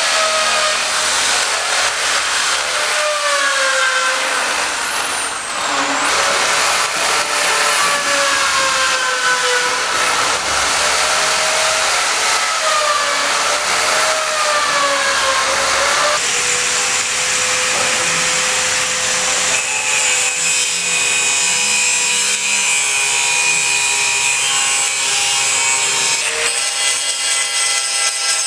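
A tool sawing or cutting, with a steady hissing noise and a whine that wavers up and down every couple of seconds, then holds a steadier pitch in the second half.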